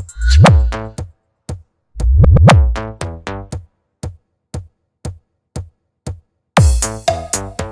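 Electronic bass sound-check remix: three heavy, booming bass hits, each falling in pitch, over sharp drum-machine clicks about twice a second.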